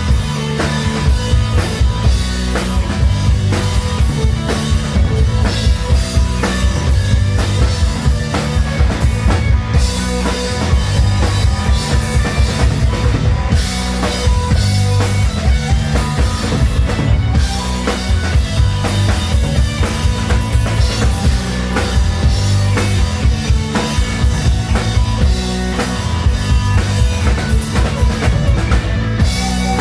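Live hard rock band playing loud, with drum kit and bass driving a steady beat and guitars; the sound is distorted and heavy in the low end as from a close recording in the hall.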